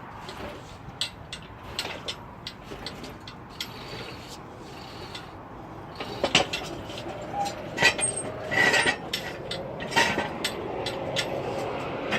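Scattered metal clinks and knocks of tools and parts during work to pull an engine from a car, louder and busier in the second half.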